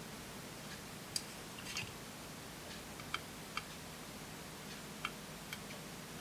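Occasional small, sharp clicks and ticks of hand tools and parts being handled while desoldering a capacitor from a circuit board, about six spread out over a faint background.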